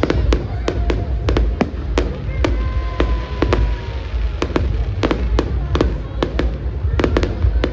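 Fireworks going off in a rapid, irregular run of sharp bangs and crackles, two or three a second, over a constant deep rumble. A faint falling whistle comes in the middle.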